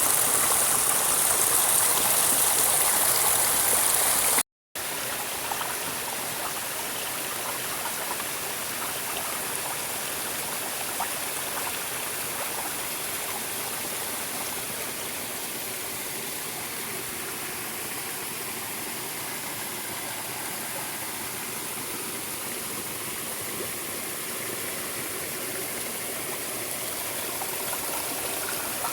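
Flowing water running steadily, like a stream. About four seconds in it cuts out for a split second and resumes quieter and less hissy.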